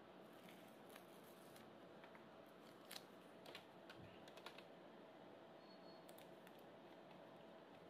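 Faint clicks and rustles of a paper sticker being peeled and pressed onto a plastic toy piggy bank, a short cluster of them about three to four and a half seconds in, over near-silent room tone with a faint steady hum.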